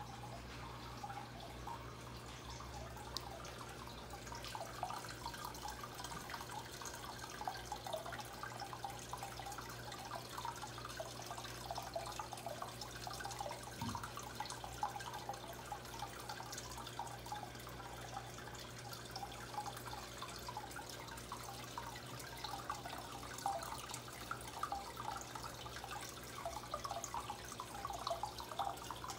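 Aquarium water trickling and bubbling steadily at the surface, over a low steady hum.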